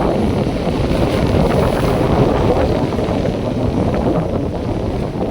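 Wind buffeting the microphone over North Sea surf breaking and washing up the beach, a steady rushing noise.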